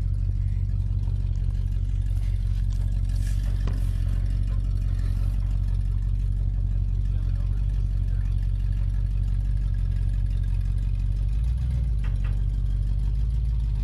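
A tow truck's engine idling steadily, a low, even hum.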